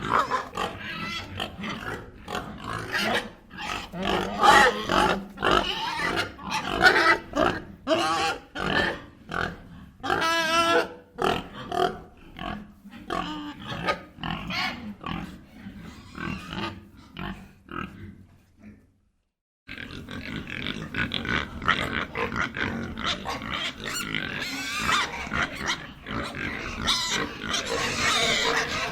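Pigs making a rapid, irregular run of short calls, with one longer, higher squeal about ten seconds in and a second of silence about two-thirds of the way through.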